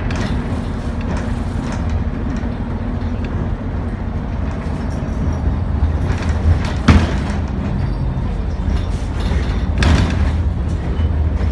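Interior of an Optare Solo single-deck bus on the move: a steady low engine and road drone with a faint engine note. Two sharp knocks about seven and ten seconds in, the first the loudest moment.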